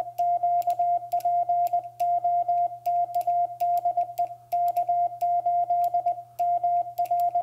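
Morse code sidetone from a QRP transceiver: a steady tone around 700 Hz keyed into dits and dahs by a K6ARK Pico paddle, with light clicks at the keyed elements.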